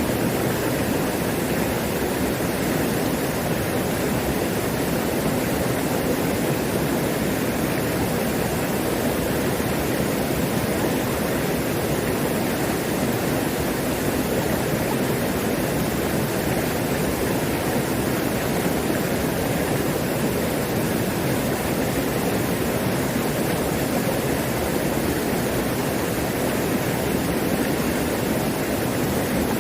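Mountain stream running high, water rushing steadily over rocks and small cascades in one unbroken, even rush.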